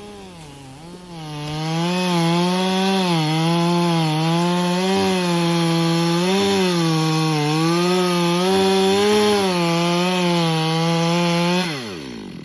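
Chainsaw cutting through a tree stump close to the ground. The engine runs at high revs, its pitch dipping and recovering again and again as the chain bites into the wood. A little after the start it revs up into the cut, and near the end the throttle is let off and the engine speed falls away.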